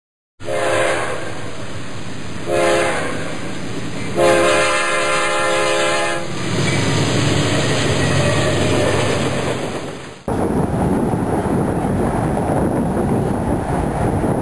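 A passenger train locomotive's air horn sounds three chords: long, short, long. The rumble of the train follows. Near the end the sound cuts abruptly to a steady rumbling noise.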